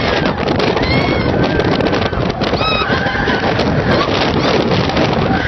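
Roller coaster in motion: a steady rush of wind buffeting the microphone and the rumble of the ride, with a woman screaming in several short high shrieks over it.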